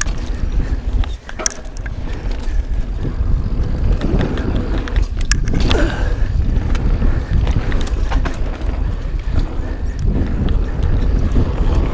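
Mountain bike riding down a dirt trail, heard from a GoPro: wind buffeting the microphone and the tyres rolling over dirt and rocks, with the bike rattling and scattered sharp clicks and knocks.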